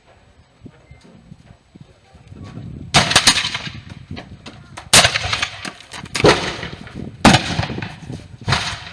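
Reenactors' black-powder muskets firing blanks in a scattered volley: about six sharp reports, each ringing out, spaced roughly a second apart, with the first two close together, beginning about three seconds in.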